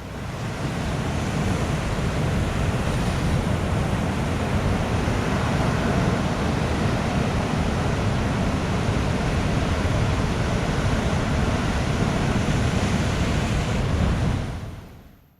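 Heavy ocean swell breaking as surf ahead of a typhoon, with wind noise on the microphone. The sound cuts in abruptly and fades out near the end.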